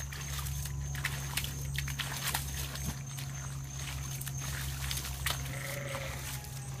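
Doberman digging and nosing in a mud puddle: irregular wet scrapes and splashes of mud.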